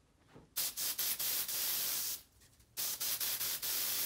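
Aerosol canned-smoke tester hissing in two sprays of about a second and a half each, with a short break between, aimed at a smoke detector to test that it senses smoke.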